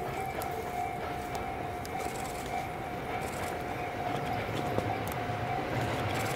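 Tobu N100 series Spacia X electric train running in slowly over station points. A low running rumble grows louder through the second half, under a steady high tone.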